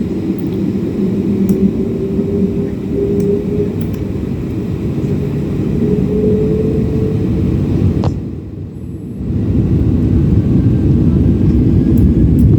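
Boeing 767-300ER's jet engines at takeoff power, heard from inside the cabin over the steady rumble of the takeoff roll, with a whine rising slowly in pitch. About eight seconds in there is a click, and the rumble dips briefly before coming back louder.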